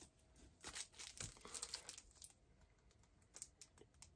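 Faint rustling and crinkling of packaging being handled as an item is pulled out of a box, busiest in the first couple of seconds, then a few light clicks.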